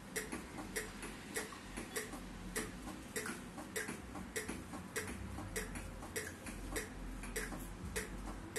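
AED trainer's CPR metronome ticking steadily, a bit under two ticks a second: the compression-rate prompt that paces chest compressions.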